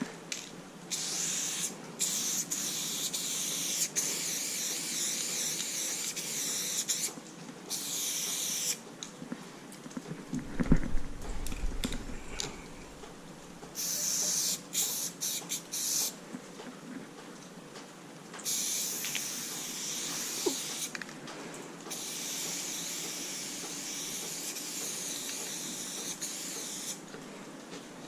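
Aerosol spray paint can hissing in several long bursts of a few seconds each, with short taps between them. A cluster of loud low thumps comes near the middle.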